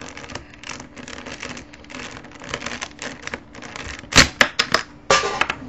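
A plastic Rubik's Cube being pried apart with a screwdriver: a run of small plastic clicks and scrapes as the blade is worked in between the pieces, then loud sharp clacks just after four seconds and again about a second later.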